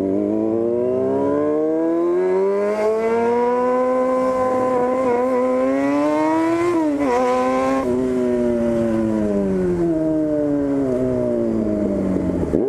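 Yamaha FZ6's inline-four engine running loud through a 4-into-1 straight-through exhaust with no silencer. The revs climb for a few seconds and hold, drop sharply about halfway through as at a gear change, then fall away slowly as the bike slows, with a short blip of throttle at the end.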